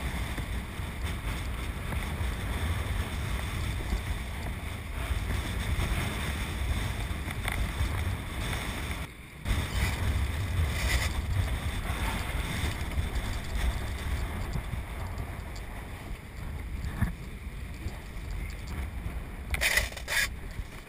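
Wind buffeting the microphone over the rush and splash of water along a wooden boat's hull as it speeds through choppy sea under kite pull. The noise is steady, breaks off briefly about nine seconds in, and has a few sharper gusts near the end.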